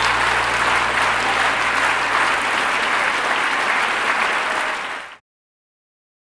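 Large theatre audience applauding, a dense steady clatter of many hands clapping, which fades out quickly about five seconds in and gives way to silence.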